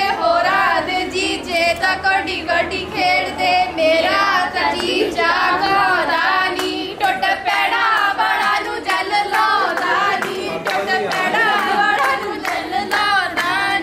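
A group of women singing together in Punjabi, loud and overlapping, with hand claps scattered through.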